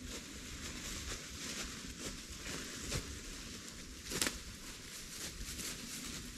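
Footsteps crunching through dry fallen leaves on a forest floor, with a sharper crack about four seconds in.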